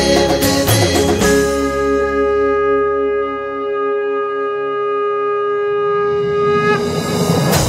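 Devotional background music: a short percussive passage gives way about a second in to one long, steady blown note from a conch shell (shankh), which fades away near the end.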